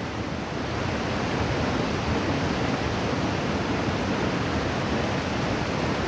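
Steady rushing of flowing river water, growing a little louder about a second in.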